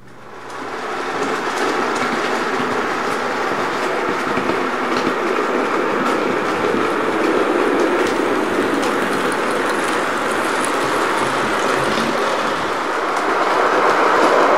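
Model train running past: a Murphy Models 071 Class diesel locomotive hauling empty timber wagons, its wheels giving a steady rattle over the track with scattered clicks. It swells in within the first second and grows louder again near the end.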